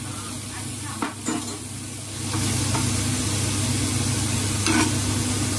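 Prawns sizzling as they fry in oil in a nonstick pan, turned with a spatula that scrapes across the pan a few times; the sizzle gets louder about two seconds in.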